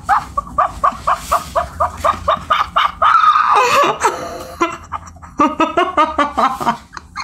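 A woman laughing hard behind her hand in rapid short bursts, about four or five a second, breaking into a longer, louder cry of laughter about three seconds in, then bursting again.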